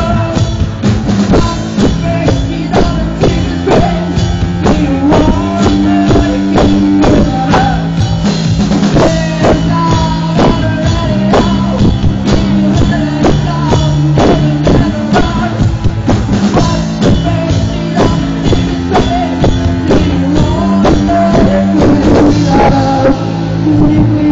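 Rock band playing live: a drum kit keeps a steady beat under electric guitar, with a singer's voice over the top.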